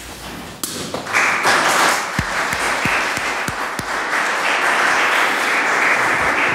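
Audience applauding, starting about a second in and going on steadily, with a few low knocks in the middle.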